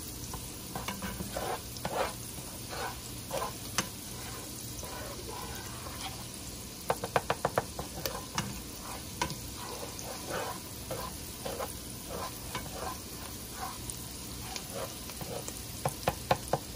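Diced yellow onion frying in melted butter in a pot with a steady sizzle, as the onions are browned, while a silicone spatula stirs and scrapes the pan bottom every second or so. A quick run of light ticks comes about seven seconds in.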